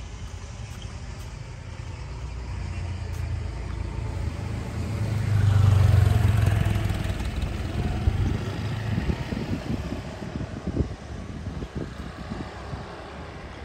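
A motor vehicle passing close by: its engine noise builds, is loudest about six seconds in, then fades away. A few sharp knocks follow as it dies down.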